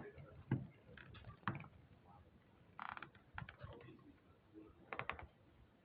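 Scattered light clicks and knocks, with a short rustle about three seconds in and a quick run of clicks near five seconds.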